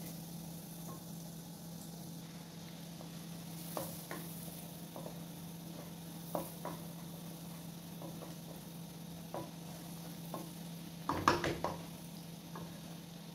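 Minced garlic sizzling gently in melted butter in a nonstick wok while a wooden spatula stirs it, scraping and tapping against the pan now and then. A quick cluster of louder knocks of the spatula on the wok comes near the end.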